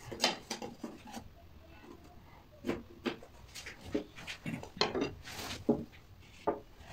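Thin wooden strips being handled on a workbench: irregular light knocks and clatters of wood on wood, with short scrapes as a hand tool is drawn along a strip.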